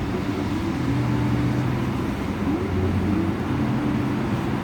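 Car on the move: steady engine hum and road noise.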